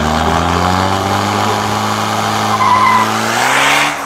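Diesel drag truck's engine held at steady high revs, with a loud rushing noise over it and a short high whistle about two-thirds through. The revs rise slightly near the end, then drop off.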